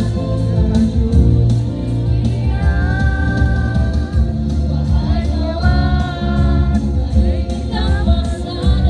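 Children's choir of girls singing together over loud amplified accompaniment with a steady beat, holding long sung notes at times.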